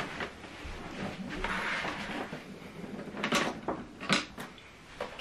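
Handling noise as a flat-screen TV is set back upright on a tabletop after cabling: a rustle of movement, then a few sharp knocks a little past three and four seconds in.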